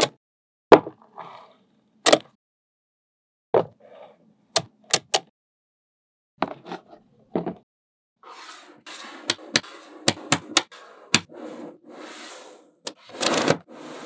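Magnet balls snapping together in sharp separate clicks, about a second apart. About halfway through a continuous scraping rattle of balls sliding and rolling sets in, and the clicks come faster.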